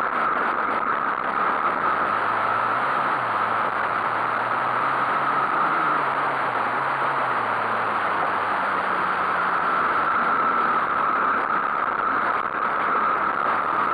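Small dirt bike engine running hard on a motocross track, its pitch rising and falling as the rider works the throttle through the corners, heard from a camera mounted on the bike with heavy wind noise over it.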